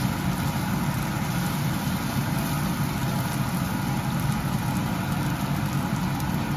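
A steady low drone, heaviest in the low range, under chopped onion, garlic and bacon frying in a nonstick pan.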